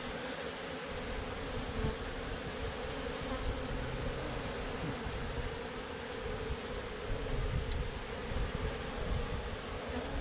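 Africanized honeybee colony buzzing: a steady, even hum from many bees at once, with an uneven low rumble beneath it.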